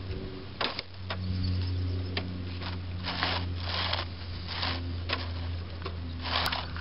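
Wind-driven K'Nex rock tumbler turning: irregular clicks and knocks as rocks tumble and slide inside the plastic soda bottle rolling on its K'Nex wheels, with a few short rattling swells near the middle over a steady low hum.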